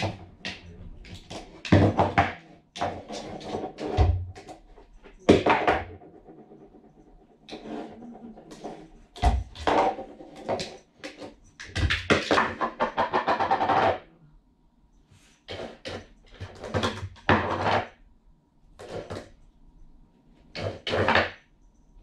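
A cat's food bowl clattering and scraping across a wooden floor in repeated bursts as a hungry cat bats and shoves it around, begging to be fed. There is a longer, steady rattling run about twelve seconds in.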